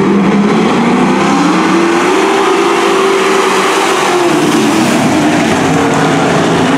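A pack of dirt-track racing trucks running at speed, several engines at once. One engine's pitch climbs over the first few seconds and falls away after about four seconds as the trucks go by.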